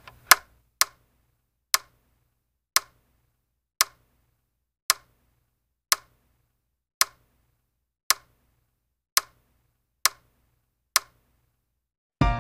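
Wall clock ticking, one sharp tick about every second, stopping just before the end.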